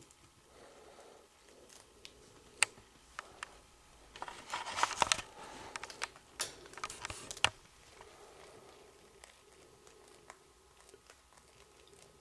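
Chinchillas moving about their cage: scattered sharp clicks and scratching, with a busier stretch of crinkly rustling and clicks in the middle.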